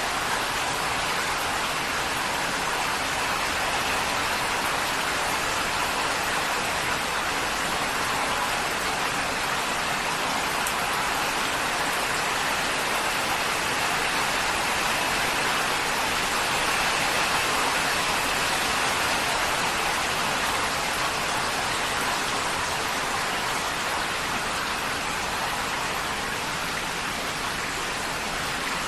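Heavy rain drumming on a corrugated tin roof, a dense, steady patter that holds the same level throughout.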